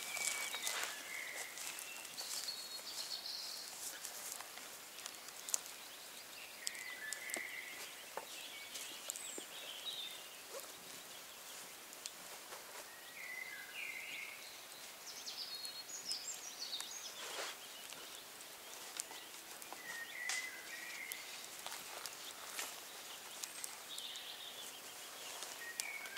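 Wild birds chirping and trilling, a short call every second or two, with now and then a sharp click or scrape from a knife whittling a green stick.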